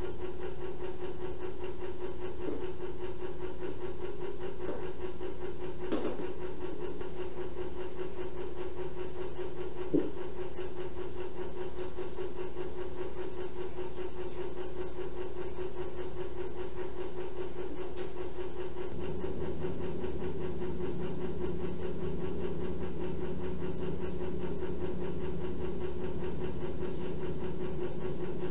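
Steady machine hum with a constant tone, plus a couple of faint clicks. The low rumble under it rises slightly about two-thirds of the way in.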